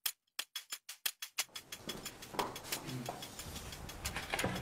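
Dramatic ticking sound effect: a run of sharp, fast ticks, about six or seven a second, and from about a second and a half in a tense music bed swells in under the continuing ticks.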